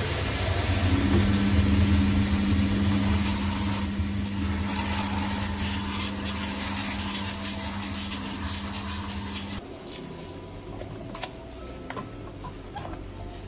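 Cobbler's finishing machine running, a steady motor hum under a broad hiss from its spinning abrasive wheels, cutting off suddenly about nine and a half seconds in. After that, faint clicks of pincers pulling old nails from a shoe sole.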